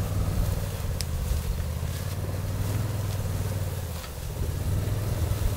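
Engine of an off-road utility vehicle running steadily at low speed while it tows a steel-framed duck blind on skids through dry grass; the engine eases off briefly about four seconds in.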